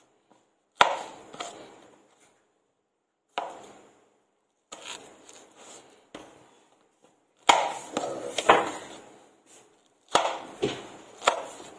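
Kitchen knife cutting green chillies on a cutting board: a series of sharp knocks of the blade on the board at irregular intervals, some in quick pairs.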